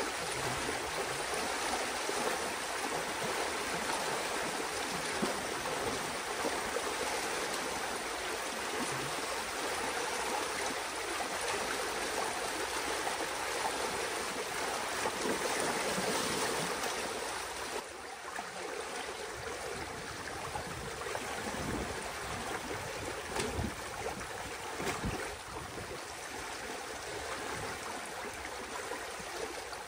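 Pond water rushing and churning through a breach cut in a beaver dam as it drains: a steady, noisy rush of flowing water. It gets a little quieter about two-thirds of the way through, and a few short thumps come near the end.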